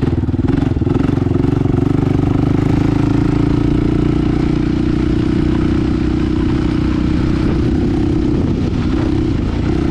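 Honda TRX450R quad's single-cylinder four-stroke engine running at low, nearly steady revs while riding in gear, its note wavering briefly about eight seconds in.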